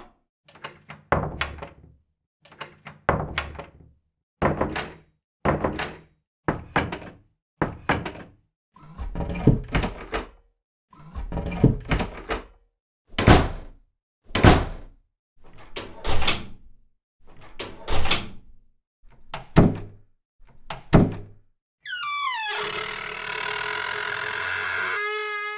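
Doors being shut one after another, a separate thunk roughly every second, some with a double knock of the latch, each followed by silence. Near the end a different sound takes over: a few seconds of high, wavering squeal with gliding pitch.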